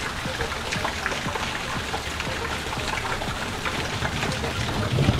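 Steady rain falling, with many separate drops striking close by and a louder knock near the end.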